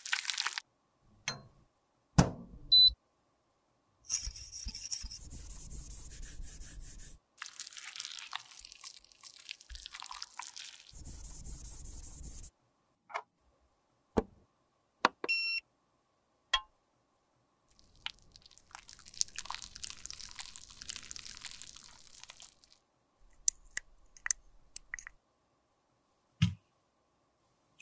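Makeup-crafting handling sounds: a scrape as lumps of solid white lipstick base are spooned into a glass beaker, scattered clicks and taps, and two long stretches of steady noise. About fifteen seconds in, a UV sterilizer box gives a short electronic beep.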